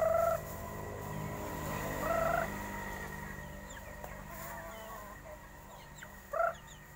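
Chickens calling: three short squawks rising in pitch, about two and four seconds apart, over a low steady hum, with a few faint high chirps in between.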